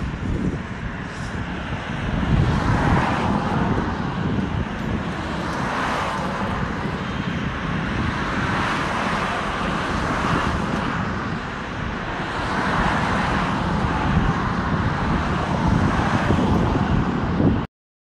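Road traffic: cars passing close by one after another, a continuous rush of tyre and engine noise that swells and fades as each vehicle goes by. It cuts off suddenly near the end.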